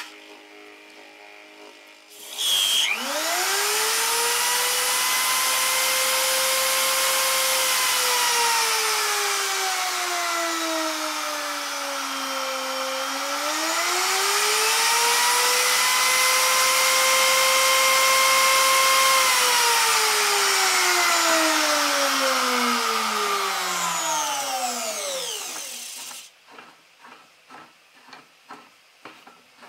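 Electric hand router mounted upside-down under a router table, running free with no cut, while its speed is set. The motor starts about two seconds in with a rising whine and runs steady. Its pitch sinks and comes back up as the speed is turned down and up again, then it winds down with a long falling whine and stops near the end, followed by a few light clicks.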